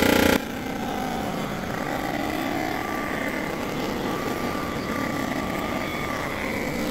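Block surfacer's cutter head spinning and cutting across the cast-iron deck of a Toyota 3VZ V6 block, giving a steady machining noise with a faint whine. A louder sound cuts off sharply just after the start.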